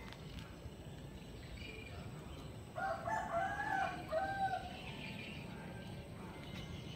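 A rooster crowing once, a drawn-out call of about a second and a half starting about three seconds in.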